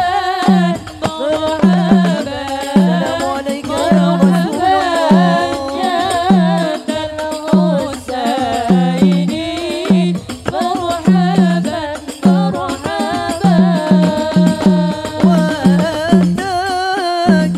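Women's voices singing a sholawat, an Islamic devotional song, into microphones, the melody wavering with ornamented turns. Under them runs a low drum beat of roughly two hits a second, with occasional quick doubled hits.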